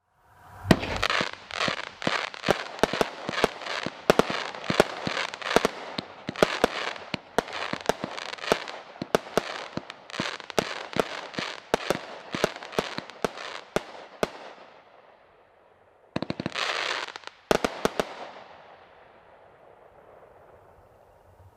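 "Fighting Rooster" consumer firework firing: a rapid run of sharp shots with crackling between them for about fourteen seconds, trailing off. Then a short burst of crackle and a few final reports.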